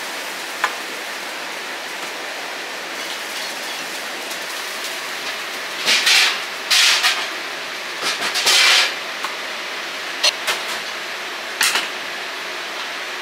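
Commercial wok-cooking kitchen: a steady rushing noise from the burners and extractor, broken by several short loud bursts of sizzling as food or liquid hits the hot wok, with a few sharp metal clinks of a ladle or utensil.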